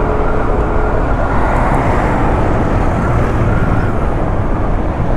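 Motorcycle riding along a road: steady engine and road noise mixed with loud wind rushing over the action camera's microphone.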